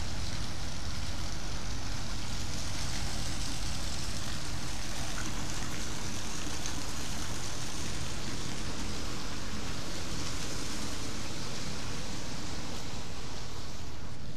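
Steady low rumble of a moored ship running, with the rushing splash of a jet of water pouring from an outlet in its hull into the sea.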